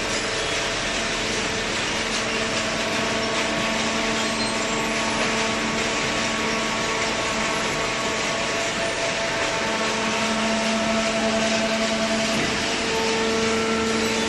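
Hydraulic cardboard baler line running: a steady machine hum over a broad hiss, the hum growing stronger about ten seconds in.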